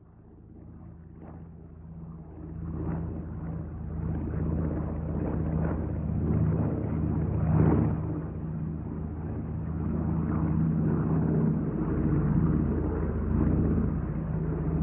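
Airplane in flight: a steady engine drone with a low hum, growing louder over the first few seconds and then holding with small swells.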